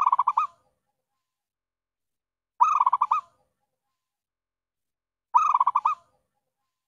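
Zebra dove (perkutut) cooing: three short calls about 2.7 seconds apart, the first right at the start, each a quick run of six or seven rolling coo notes. It is a lure call for drawing in wild zebra doves.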